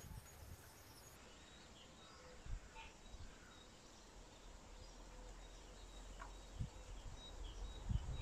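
Quiet outdoor garden ambience with faint, scattered bird chirps and a few soft low thumps.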